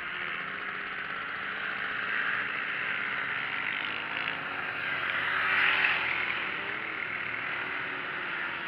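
Small-displacement mini GP race motorcycles running on a wet track, their engines wavering in pitch as they go round. One bike passes closer about halfway through.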